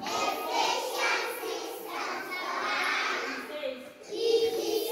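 A class of young children chanting a word together in unison, repeating it after their teacher.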